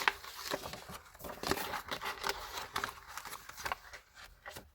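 Paper being cut with scissors and handled: an irregular run of short crisp snips and rustles.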